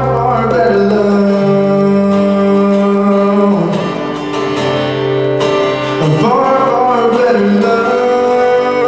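Live band music: voices singing long held notes over guitar, the chord changing about three and a half seconds in and again at about six seconds.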